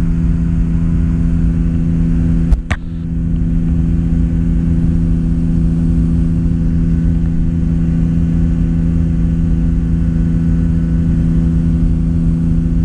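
Kitfox light aircraft's engine and propeller droning steadily, heard inside the cockpit in cruise flight. Two sharp clicks close together sound about two and a half seconds in.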